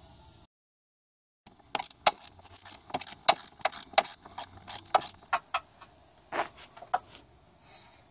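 A 1/4-inch hand ratchet with a 10 mm long socket clicking in quick, uneven strokes as a bolt is turned, starting after a second of silence and stopping about a second before the end.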